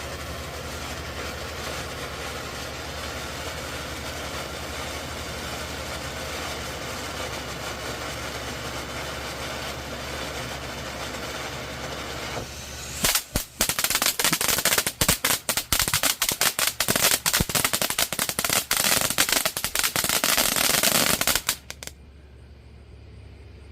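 Miracle's Pyro Patrick firework fountain spraying with a steady hiss. About halfway through it breaks into a loud, fast run of crackling pops lasting several seconds, which cuts off suddenly near the end as the fountain finishes.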